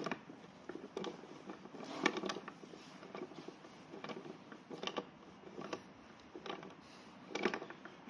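Faint, irregular metal clicks and ticks of a T-handle hex key turning a bolt in a scooter seat-post clamp bracket as the bolt is tightened, the key re-seating between turns.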